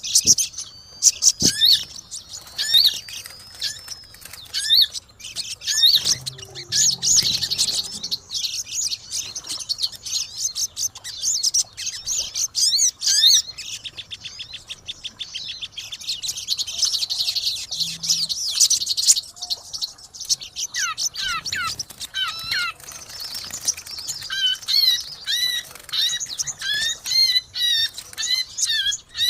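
Caged songbirds, pleci (white-eyes) and sogon, chirping and twittering busily in a dense, rapid, high-pitched chatter with trills. In the last third this gives way to a run of clear, repeated whistled notes.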